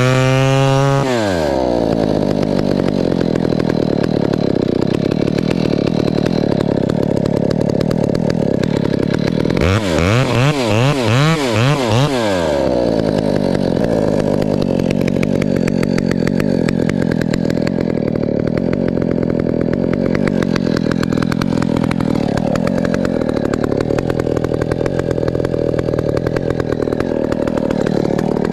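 Husqvarna 395XP two-stroke chainsaw with a 32-inch bar cutting through a grand fir trunk under load. The engine speed sinks as the chain bites in at the start, then the saw is revved up and down several times about ten seconds in before running steady in the cut again.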